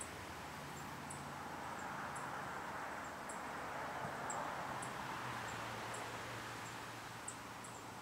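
Quiet outdoor ambience: a soft rushing sound swells for a few seconds and then fades, while a faint, short, high chirp repeats about once a second.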